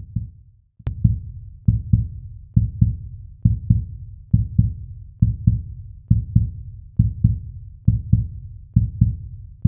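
Heartbeat sound effect: low double thumps in a steady lub-dub rhythm, a little under one beat-pair per second.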